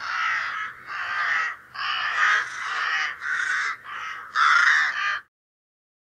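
Crow cawing: a run of about seven harsh caws in quick succession, stopping about five seconds in.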